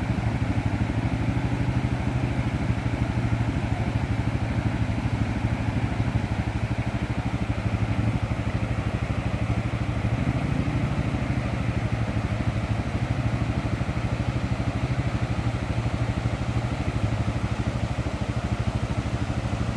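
ATV engine running at a steady, low speed, its note even throughout with no revving.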